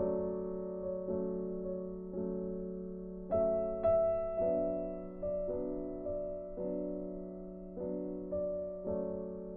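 Background music: a slow, gentle piano or electric-piano tune, notes struck about every half second and left to ring and fade.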